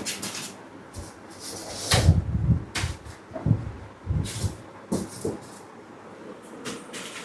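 Cardboard box and packing being handled during unboxing: rustling and scraping with several dull thumps, the loudest about two seconds in.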